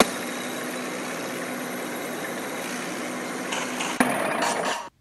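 Tank engine sound effect running steadily with a low hum, then a sharp bang about four seconds in, followed by under a second of louder noise that cuts off suddenly.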